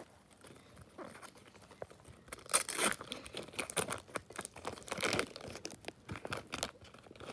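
Wrapper of a LEGO trading-card pack being torn open and crinkled by hand: irregular crackling and tearing, loudest about two and a half seconds in and again about five seconds in.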